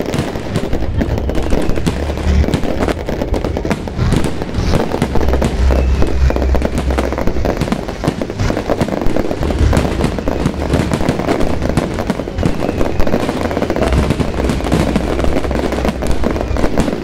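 Fireworks display: a dense, continuous run of bangs and crackles, with deep booms every few seconds.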